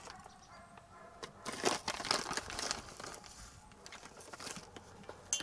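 Foil coffee bag crinkling and rustling in irregular spells as it is handled while coffee is spooned out.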